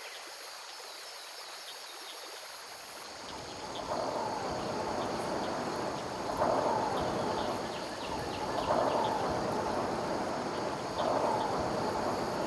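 Outdoor wind ambience: a steady rushing noise comes in about three seconds in and swells every two seconds or so, with faint high chirps over it.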